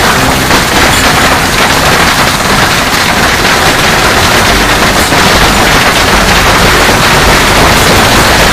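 Heavy hail pelting a swimming pool and patio deck: a loud, unbroken clatter and splashing of countless hailstone impacts.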